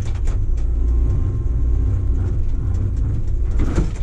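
Hitachi crawler excavator's diesel engine running under load as the bucket digs into rocky ground. Scattered short knocks and scrapes of rock against the steel bucket come several times a second over the steady engine rumble.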